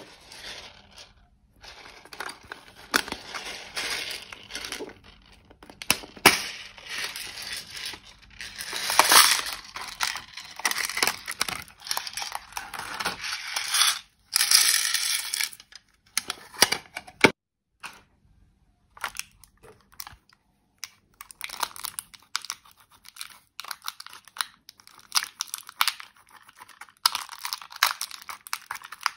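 Pressed eyeshadow powder being scraped and crumbled out of a plastic toy makeup palette: a metal pick scratching at the pans, dry crackle of crumbling powder and small plastic clicks. Dense and busy for the first half, then sparser scrapes and clicks after a short pause.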